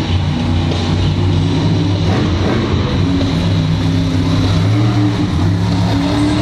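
Monster truck engine running loud and revving up and down as the truck drives and turns on the dirt arena floor.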